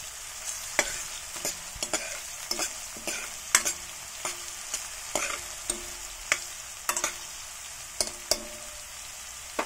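Chopped onions and whole spices frying in oil in a stainless steel kadhai, with a steady sizzle. A steel ladle stirs them, knocking and scraping against the pan about twice a second.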